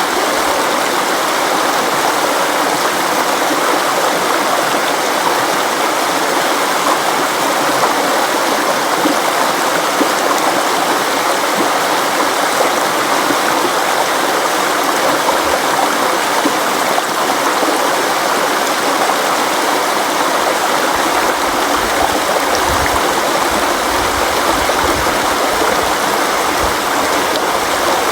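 River water flowing and rushing steadily, an even continuous wash of water noise; a low rumble joins in during the last several seconds.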